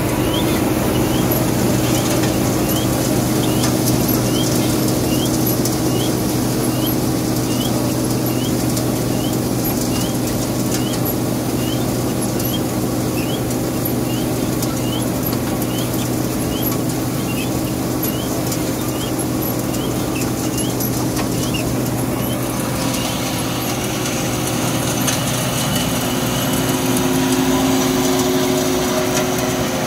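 A motor or engine running steadily with a low hum, while a short high chirp repeats a little more than once a second and stops about three-quarters of the way through.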